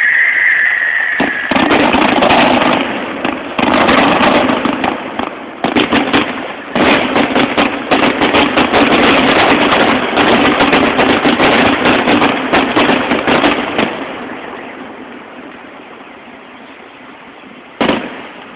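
Fireworks display finale: a steady high whistle in the first second, then a rapid barrage of shell bursts and crackling for about twelve seconds that dies away, with one last bang near the end.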